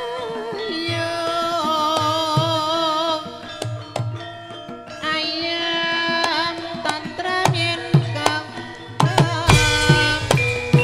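Javanese gamelan music: a sinden (female singer) sings a wavering line with strong vibrato over struck bronze metallophones and repeated drum strokes. A deep, loud low stroke comes in near the end.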